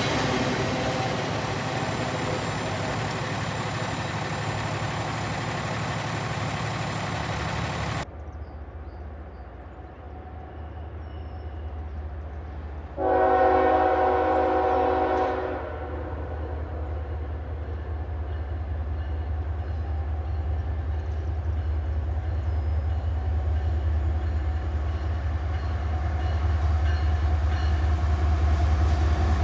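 Empty intermodal well cars rolling past on the rails. After a cut, a CSX GE ES44AH diesel-electric locomotive approaches with one horn blast of about two and a half seconds, some 13 seconds in. Its low engine rumble then grows steadily louder as it nears.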